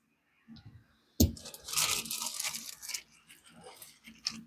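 A knock about a second in, then crinkling and rustling of packaging as a pile of sockets is handled and opened, with a few small clicks near the end.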